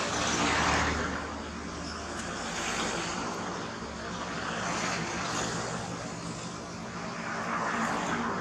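Steady distant engine drone with a low hum, swelling and easing several times.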